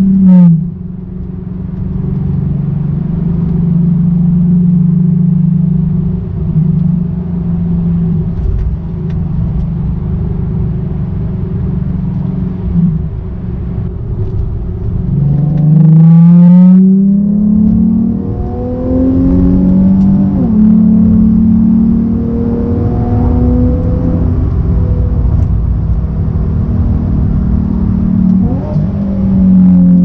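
Nissan 370Z's 3.7-litre V6 heard from inside the cabin, running at a steady cruise, then pulled hard about halfway through so its note climbs to the loudest point before dropping back at a gearchange. The revs rise and fall a few more times near the end.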